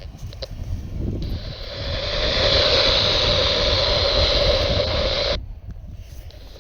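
Radio static hiss on a NOAA Weather Radio reception. It swells up about a second in and cuts off suddenly about a second before the end.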